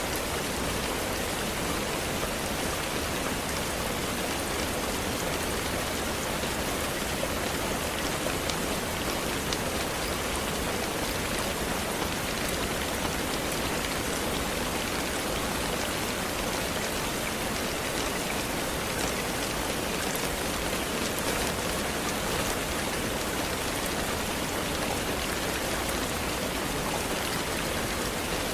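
Steady rain falling: an even hiss with scattered drop ticks, unchanging throughout.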